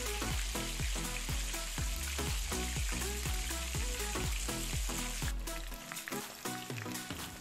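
Hot oil sizzling and bubbling steadily around whole fish deep-frying in a cast iron pan, with background music with a steady beat underneath.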